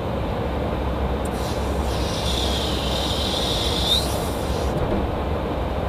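Steady in-flight rumble and rushing air heard at a KC-135 tanker's boom operator station during aerial refueling. A high whine comes in about a second and a half in, rises sharply just before four seconds, and fades about a second later.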